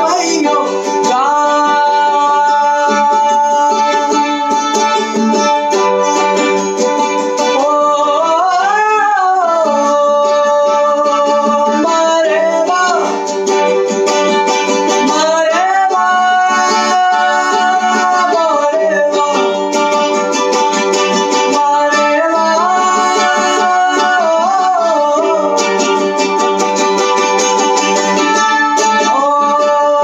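A man singing long, held melodic phrases in a Sufi-influenced style, sliding up and down between notes, while accompanying himself on a plucked mandolin.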